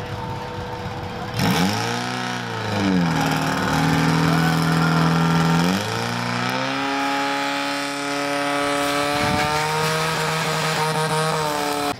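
Portable fire pump engine revving hard. Its pitch comes in suddenly about a second and a half in, swings up and down, then holds steady. It climbs to a higher steady pitch around six seconds in and dips just before the end.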